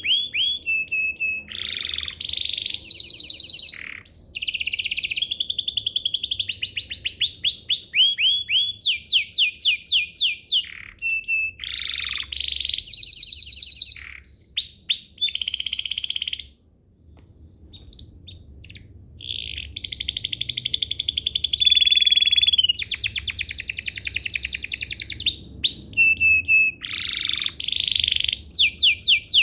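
Domestic canary singing a long, fast song of rapid trills and rolling repeated phrases, with a short pause about halfway through before it resumes.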